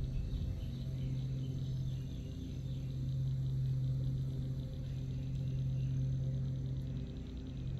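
Low, steady hum of a boat motor, with faint insect chirping above it.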